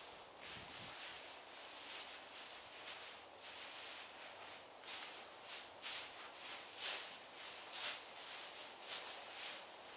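Clydesdale horses' hooves stepping and shuffling through deep straw bedding: repeated crunching rustles, about one or two a second, louder in the second half as a horse walks closer.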